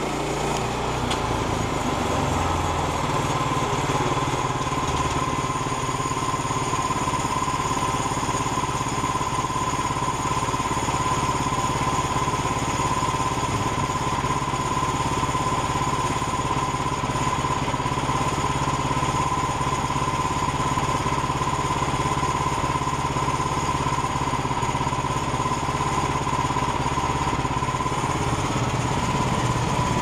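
Woodland Mills HM122 portable bandsaw mill running steadily as its band blade cuts through a log, the engine holding an even pitch with a steady high whine over it.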